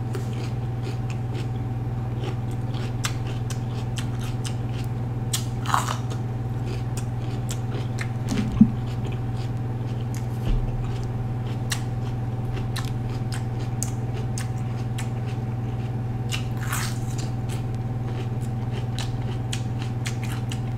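Crisp crunching and chewing of a raw yellow bell pepper being eaten whole, scattered small crunches with a few louder bites, over a steady low hum.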